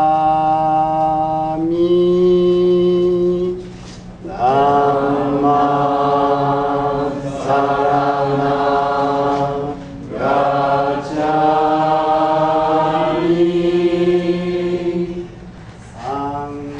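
Slow singing in long held notes, phrase after phrase with short breaks between them, a higher voice over a lower, steadier part.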